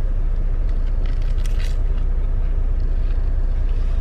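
Steady low rumble inside a semi-truck cab, typical of the truck's diesel engine idling, with a few faint clicks about a second and a half in.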